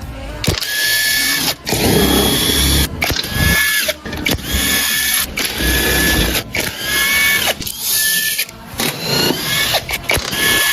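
Power tool running in repeated short bursts, each about a second long with brief pauses, with a steady high-pitched whine. One run near the end spins up with a rising pitch. It is the sound of bolts being run out while a 5.7 V8 engine is taken apart.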